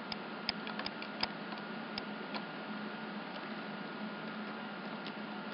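Computer mouse clicking: a handful of sharp single clicks, most of them in the first two and a half seconds, fainter and sparser after, over a steady faint hum and hiss.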